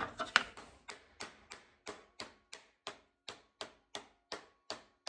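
Mallet tapping a drilled jatoba wood blank onto a wood lathe's tapered steel mandrel: a steady run of light taps, about three a second, driving the blank on until it seats.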